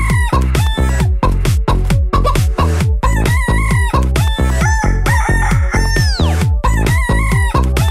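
Techno dance track with a fast, steady kick drum, with hen clucks and rooster crowing mixed into the beat; a long falling call comes about six seconds in.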